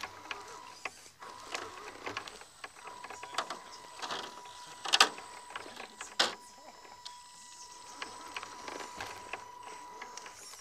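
Radio-controlled scale rock crawlers working over rocks: a steady high electric-motor whine from the drivetrain, with clicks, scrapes and knocks as tyres and chassis meet the rock, the loudest knocks about five seconds in and again just after six.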